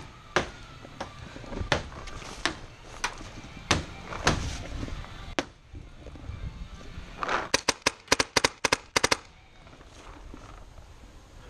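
Paintball markers firing: separate sharp pops about once a second in the first half, then a rapid string of about ten shots about three-quarters of the way through.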